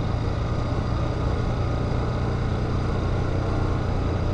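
Bajaj Pulsar RS200's single-cylinder engine running at a steady pitch while riding, with a constant rushing noise over it.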